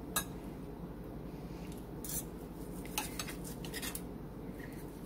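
Metal fork and knife cutting grilled chicken breast on a plate: a sharp click just after the start, then a run of short knife scrapes against the plate from about two to four seconds in.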